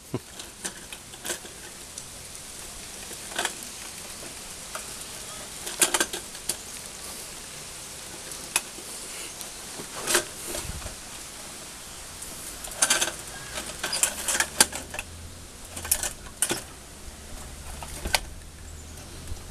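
Scattered clicks and knocks of a hard plastic Robotech Battle Pod toy being handled and stood up on a wooden deck. A faint low hum sits underneath from about halfway.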